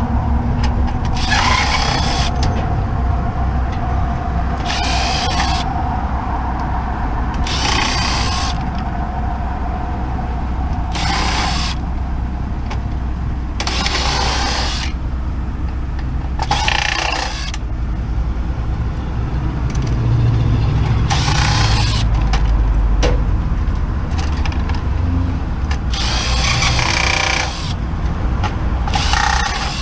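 A power driver or drill runs in short bursts, about nine times, each lasting about a second, as it backs screws out of a computer case. A steady low engine rumble sits underneath.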